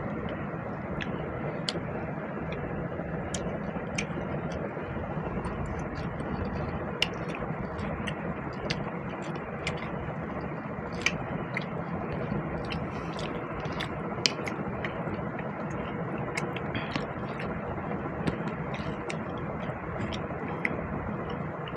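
Chewing and eating sounds: scattered short, sharp mouth clicks and smacks from someone eating basmati pulao and chicken curry, over a steady background noise with a faint hum.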